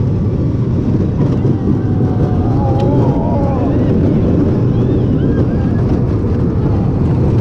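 Zamperla kiddie roller coaster train running on its track, heard from the back seat: a steady low rumble mixed with wind buffeting the action camera's microphone. Children's high voices call out a few times partway through.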